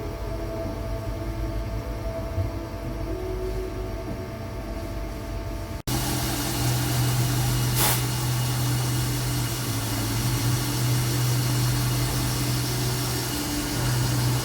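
Steady mechanical hum of machine-shop machinery running. About six seconds in it switches abruptly to a louder, lower hum, with a short hiss of noise about two seconds later.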